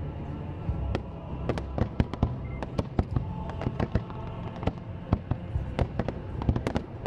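Aerial fireworks going off in quick succession: a rapid, uneven run of sharp bangs and cracks, several a second. Music plays underneath.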